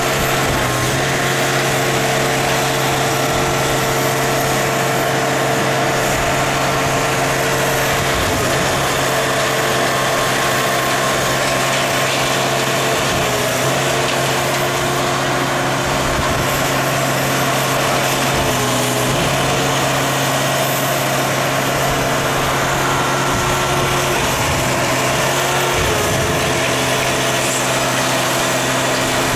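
Small engine powering an orange hydraulic scrap-metal press, running steadily, with a few brief changes in its note.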